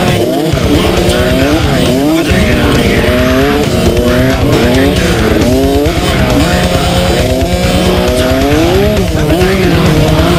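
Several small 65cc two-stroke motocross bike engines racing, their revs climbing and falling back again and again as the riders accelerate, shift and back off.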